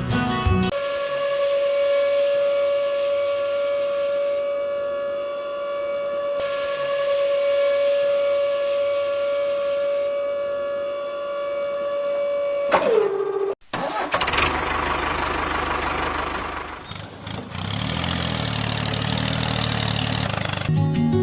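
A small motor running with a steady high whine, which falls in pitch and stops about two-thirds of the way through. It is followed by a rougher, noisier motor sound.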